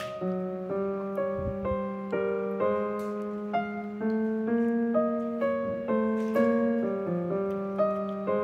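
Background piano music: a light melody of notes changing every fraction of a second over a held low note.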